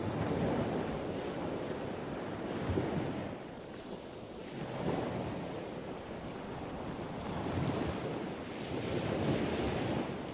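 Ocean surf: waves washing in and drawing back, an even rushing that swells and ebbs every few seconds.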